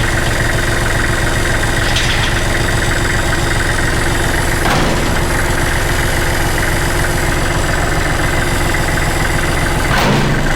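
Backhoe loader's engine idling steadily, with a few short knocks of metal being handled about two, five and ten seconds in.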